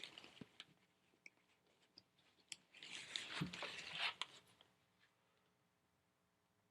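Handling noise from the coil cleaner and its freshly filled water bag: a few light clicks, then a crinkly rustle from about three to four and a half seconds in.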